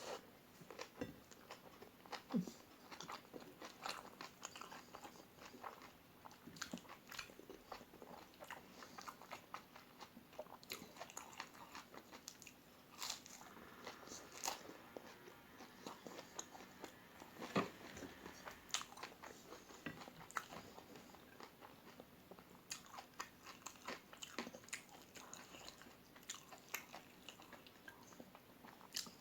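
Close-up mouth sounds of a person eating crispy fried omelette: repeated crunching bites and chewing, a steady run of short, sharp crackles.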